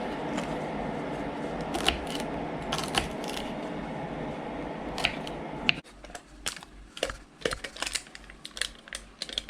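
Sharp clicks and knocks of kitchen utensils against pots and pans. A steady rushing noise runs under them and stops suddenly about six seconds in, and after that the knocks come more often.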